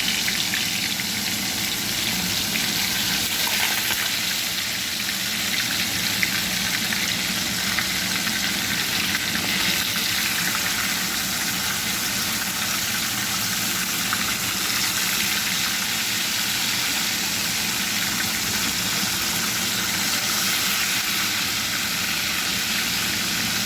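Seasoned chicken pieces frying in a hot pot as they brown, a steady sizzle with small pops here and there.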